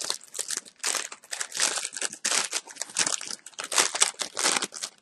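Plastic wrapper crinkling as it is handled and opened, in quick irregular crackles.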